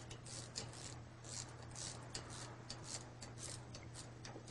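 Ratchet wrench clicking in short, irregular runs as a bolt on a disc brake caliper is turned in.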